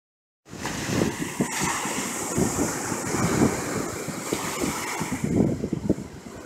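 Ocean surf washing with wind gusting across the microphone in irregular low rumbles, starting abruptly about half a second in.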